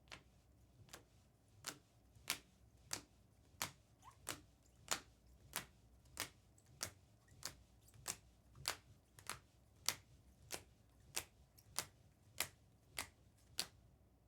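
A steady series of about twenty sharp, evenly spaced clicks, roughly three every two seconds.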